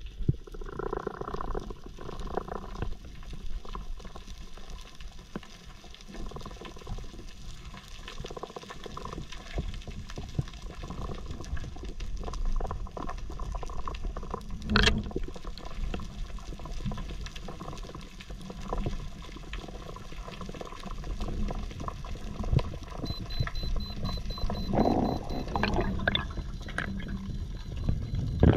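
Underwater sound picked up by a diver's camera: a steady low water rush against the housing with many small scattered clicks, one sharp click about halfway through, and louder water movement near the end.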